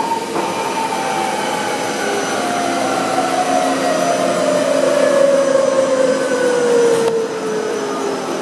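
Mazak Powermaster big-bore CNC lathe running: a steady machine whine over a hiss, its pitch falling slowly and evenly as the spindle slows.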